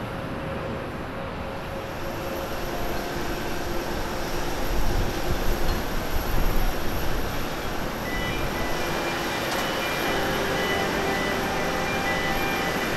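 Boeing 787-8 Dreamliner's twin turbofan engines at takeoff thrust during the takeoff roll: a broad steady roar that swells with a deep rumble about five seconds in, and a high whine of several steady tones that joins it about eight seconds in.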